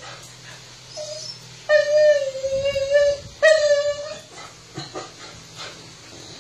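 Bullador (English Bulldog × Labrador Retriever cross) whining three times: a short whine about a second in, then a long, steady, high whine and a shorter one right after. It is the impatient whine of a dog begging for food it is being told to wait for.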